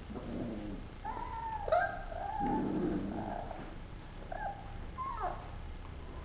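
Four-week-old Alaskan Malamute puppies squealing and yipping as they play-wrestle, with a low puppy growl mixed in. A string of high sliding squeals comes about a second in, then two more short yips near the end.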